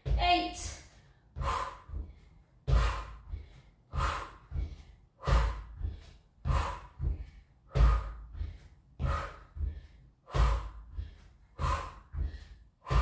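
A woman breathing hard and rhythmically from exertion while holding a forearm plank with leg lifts: a strong, noisy breath roughly every second and a quarter, each followed by a weaker one.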